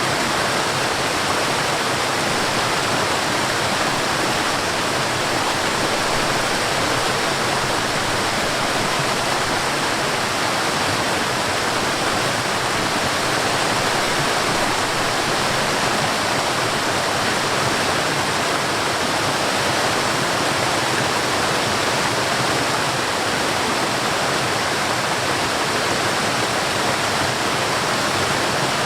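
Mountain stream tumbling over a waterfall: a steady, unbroken rush of water with no change in level.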